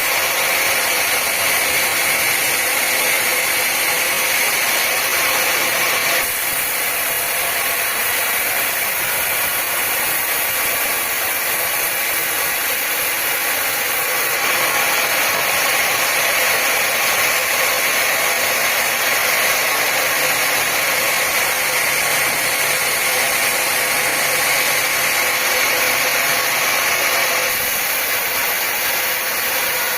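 Sawmill machinery running steadily, a continuous mechanical whirr and hiss, with abrupt small shifts in level about six seconds in and near the end.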